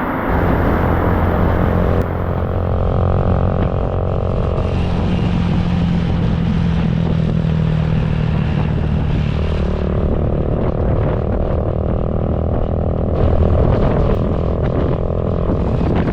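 A motor vehicle's engine running on the move, its pitch shifting up and down several times as it changes speed.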